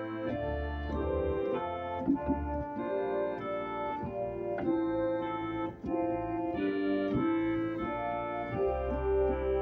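Organ playing a slow hymn tune in full held chords over a low pedal bass, the chords changing about once a second, with a brief break between phrases a little over halfway through.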